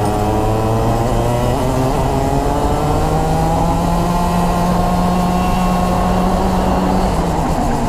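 Racing kart's two-stroke engine at full throttle, its pitch climbing steadily as the kart gathers speed down a straight, then dropping sharply near the end as the throttle is lifted for the next corner.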